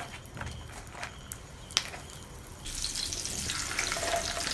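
Sliced hot dogs being put into a frying pan: a single sharp click about halfway through, then frying sizzle that sets in about two-thirds of the way in and keeps going.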